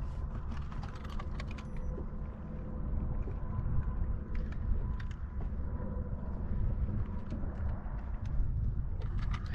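Steady low wind rumble on the microphone, with scattered light clicks and taps as a bass is handled and hooked onto a fish scale for weighing.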